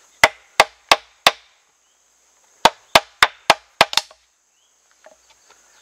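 Knife spine tapped lightly with a wooden baton, driving the blade into a green-wood stick to split it along a notch: four sharp taps about three a second, a pause, then six slightly quicker taps.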